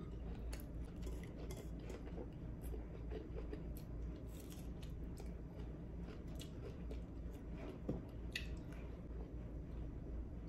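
Close-up chewing and wet mouth clicks of a person eating rice and vegetables by hand, with scattered short crisp snaps, over a steady low hum.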